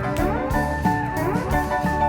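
Background music: an instrumental track with slide guitar playing over a steady drum beat.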